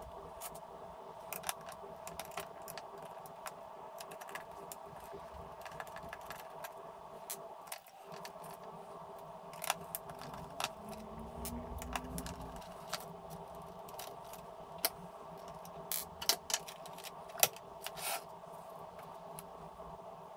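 Irregular small clicks, taps and scrapes of a screwdriver and hands working screws and parts out of the Amstrad CPC464's plastic case, the sharpest clicks a few seconds before the end, over a steady faint hum.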